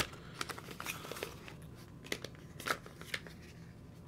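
Unpacking noises from a small cardboard accessory box of screwdriver bits: a sharp click at the very start, then scattered light clicks and rustles of cardboard and plastic being handled, with a louder click a little under three seconds in.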